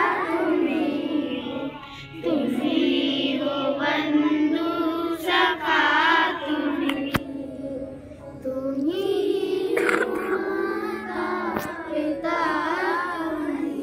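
A group of schoolchildren singing a song together in unison, in long held phrases with short breaks about two seconds and eight and a half seconds in.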